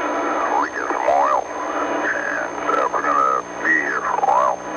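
Marine VHF radio transmission from the tanker Exxon Valdez: a man's voice in noisy, band-limited radio audio, with whistling squeals sliding up and down over a steady hum. It is the captain's call reporting the ship aground and leaking oil.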